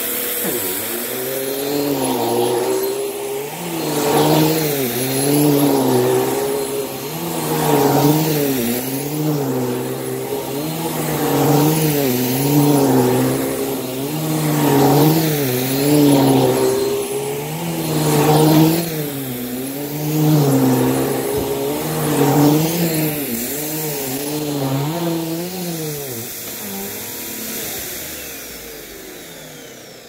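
Bissell Powerforce upright vacuum cleaner running over carpet, its motor pitch and loudness rising and falling in a steady wave about every second and a half as it is pushed back and forth. The sound fades away over the last few seconds.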